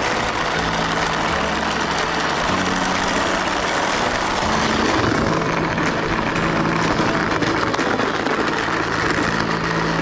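Toy RC container truck driving over rough asphalt: a steady whirring, rushing noise from its electric drive motor and tyres on the coarse surface.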